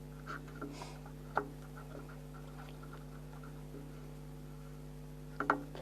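Steady low electrical hum with a few faint clicks and taps: one sharper click about a second and a half in and a short cluster of taps near the end.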